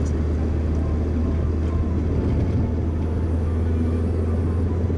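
Steady low rumble of a car driving along, heard from inside the cabin: road and engine noise.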